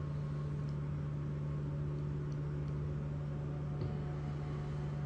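Steady low electrical-sounding hum over a faint hiss, with a few faint ticks.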